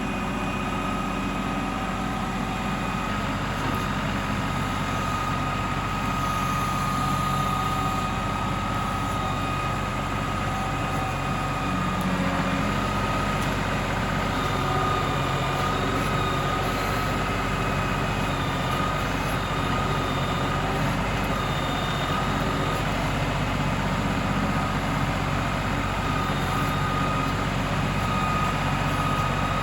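LS XR3135 compact tractor's diesel engine running steadily during ditch digging, with a steady high whine over the engine.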